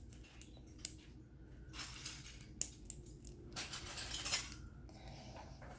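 Small plastic Lego pieces being handled and pressed together: a few sharp clicks scattered among light clatter.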